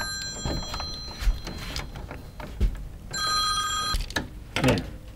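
A telephone ringing in the background, a steady high tone with several overtones that stops just after the start and rings again for about a second a little past the middle. Between the rings come a few soft clicks and knocks as wires are worked into a circuit breaker's terminals.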